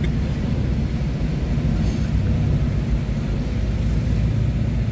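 Steady low rumble of a ferry's engines running, heard from its open car deck.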